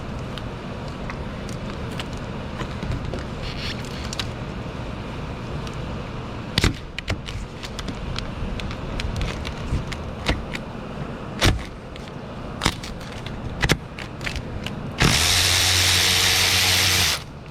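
Tools knocking and clicking against metal under the hood, then a cordless power tool running steadily for about two seconds near the end as it spins out a 12mm alternator mounting bolt.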